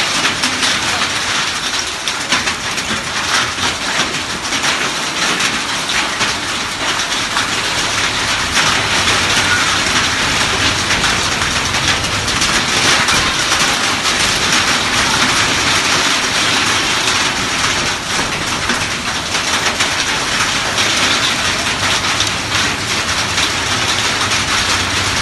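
Heavy rain pouring down steadily: a dense, loud hiss of water hitting the ground, with many fine patters throughout.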